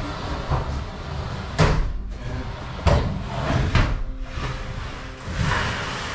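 Knocks and bumps of a Samsung front-loading laundry machine being pushed and walked across the floor into place, over a low rumble. There are three sharp knocks: about one and a half, three and nearly four seconds in.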